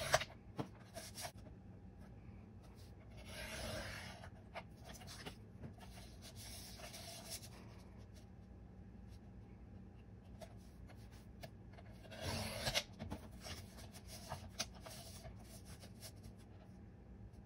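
Fiskars sliding paper trimmer cutting card stock. The cutting head is drawn along the rail about three seconds in and again about twelve seconds in, each stroke about a second long, with small taps and rustles from the paper being positioned in between.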